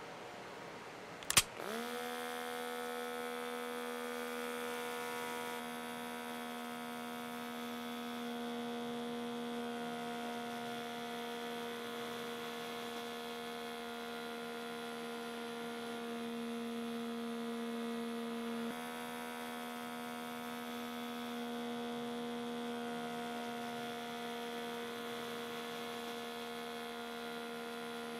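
A click, then a small electric motor spins up and runs with a steady hum as banknotes are fed into the slot of a cardboard piggy-bank safe and drawn inside. The pitch shifts slightly once, about two-thirds of the way through.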